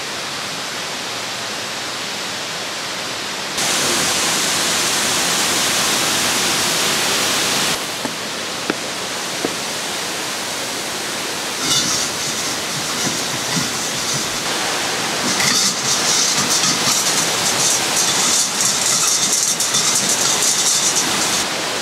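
Waterfall rushing: a steady roar of falling water. It gets abruptly louder about three and a half seconds in and drops back near eight seconds. From about twelve seconds on, an uneven crackling spatter sits on top of the rush.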